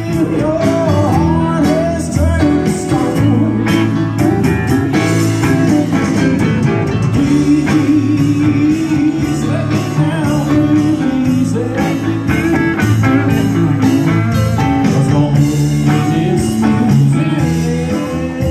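Live blues-rock band playing: electric guitar, bass guitar and drum kit, with a man singing lead vocals.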